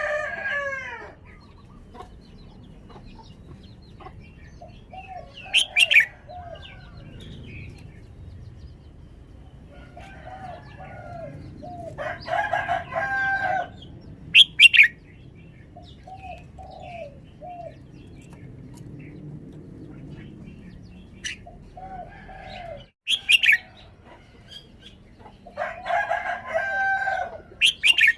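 Red-whiskered bulbul singing: short phrases of rising-and-falling whistled notes, repeated every few seconds, with a few brief, sharp high notes between them.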